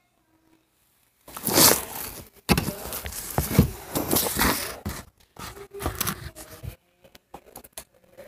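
Rustling, scraping handling noise starting about a second in and lasting several seconds, then scattered light clicks and taps.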